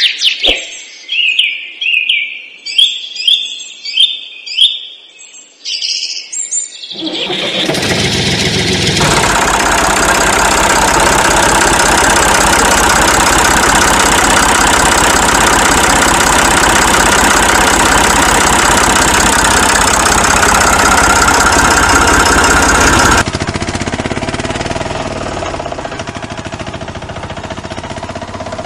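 Chirping for the first few seconds, then an engine starts about seven seconds in and runs loud and steady. About 23 seconds in it drops to a quieter engine sound.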